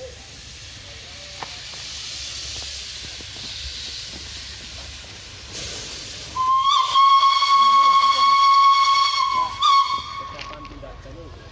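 Dutch-era steam locomotive B 5112 hissing as it vents steam from its cylinder drain cocks, then sounding one long steam-whistle blast lasting about three and a half seconds, the loudest sound, from about six seconds in.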